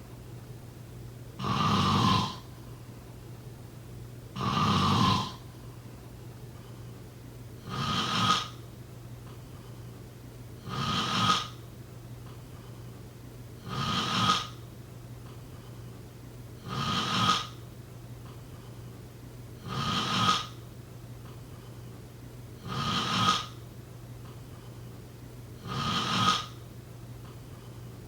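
A sleeping person snoring steadily, about one snore every three seconds.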